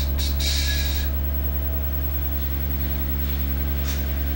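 Steady low electrical hum with a buzzy stack of overtones from powered bench electronics, with a short hiss in the first second and another brief one near the end.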